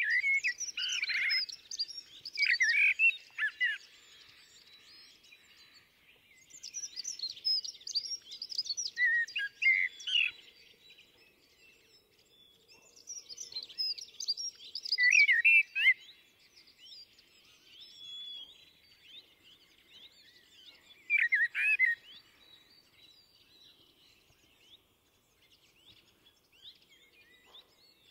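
Common blackbird singing: four separate phrases several seconds apart, each mixing lower whistled notes with high twittering.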